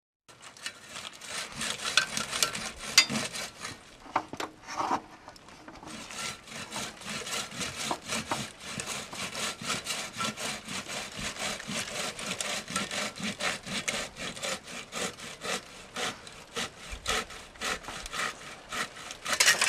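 Hand saw cutting through a branch, with rapid, even back-and-forth strokes.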